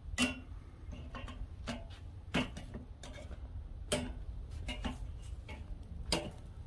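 Metal tongs clicking and tapping on a kettle grill's wire cooking grate while flipping tortillas: a handful of sharp, irregularly spaced clicks.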